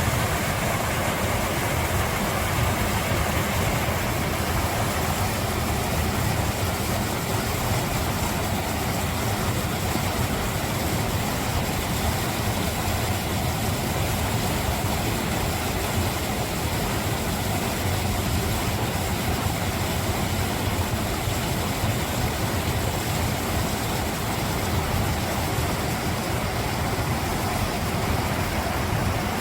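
Mountain valley stream, water running in a steady, unbroken rush.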